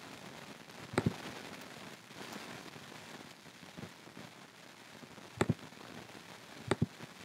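Computer mouse button clicked in three quick double-clicks, spread over the few seconds, over a steady faint room hiss.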